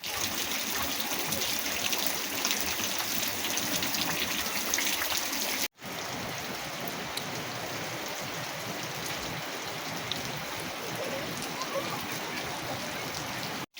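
Steady rain falling, with many small drop hits. It cuts out abruptly about halfway through and comes back as a softer, even rain hiss.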